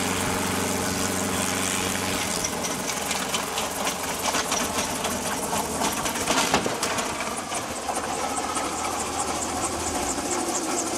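Small piston-engine helicopter running on the ground, its engine and rotor making a rapid, even clatter, with a sharp knock about six and a half seconds in. Near the end the helicopter tips over as it loses control on lift-off.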